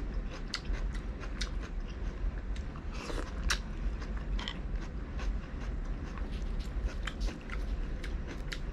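A person eating close to the microphone: chewing with many short wet clicks and smacks, a quick cluster of them about three seconds in, over a steady low hum.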